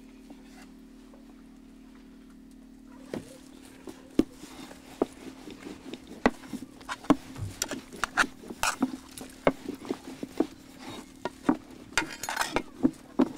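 Short wooden rolling pin tapping and clacking against a floured wooden board as dough balls are rolled out into dumpling wrappers. The quick, irregular knocks start about three seconds in.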